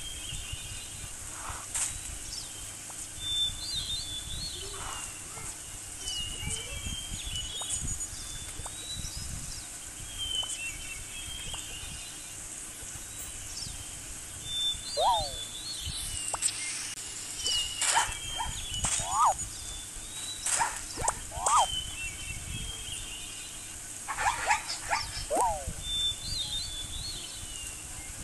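Animal-sound soundtrack of a cartoon: high bird chirps that come round in a loop about every eleven seconds, mixed with short sweeping animal calls and scattered thuds that grow busier in the second half.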